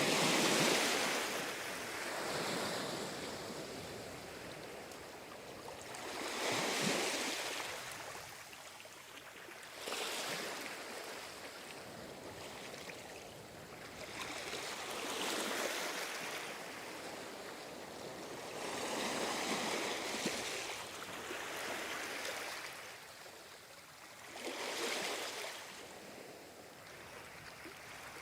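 Ocean waves breaking and washing in slow surges, about six over the stretch, each swelling to a hiss and then falling back.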